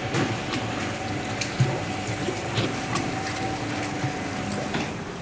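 Stainless-steel dal washing machine running with water: a steady motor hum over churning, splashing water and scattered clicks. The hum stops near the end.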